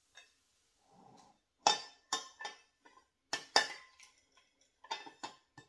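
A spoon clinking irregularly against the side of a bowl, a handful of sharp ringing clinks, as yeast is stirred into warm water to dissolve and activate it.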